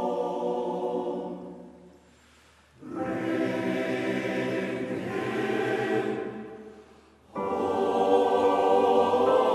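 Male voice choir singing in sustained phrases. A phrase fades out into a brief pause about two seconds in, a second phrase follows, and after another short pause the choir comes back in louder about seven seconds in.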